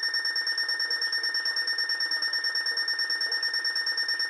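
Weather radio's electronic alert alarm: a loud, high, steady tone with a fast flutter. The radio has gone off for a Required Weekly Test that it treats as an unrecognized message.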